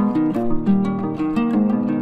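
Background instrumental music: a quick run of evenly spaced notes over a low bass line.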